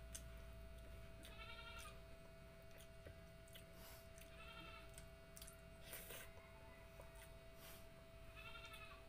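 Three short, wavering, high-pitched animal calls about three seconds apart, over faint clicks of someone chewing and eating with their hands and a steady low hum.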